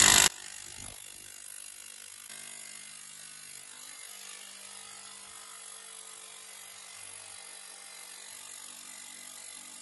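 Power hammer driving an earthing rod into compacted ground: loud for a moment at the start, then only faint as a steady hum with a low drone.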